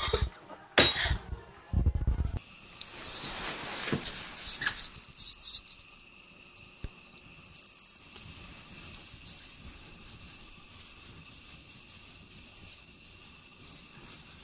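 A cat pawing and scratching at a wall of packed snow: a long run of light, crackly scrapes and scratches. In the first two seconds, a couple of loud knocks and a thud come before it.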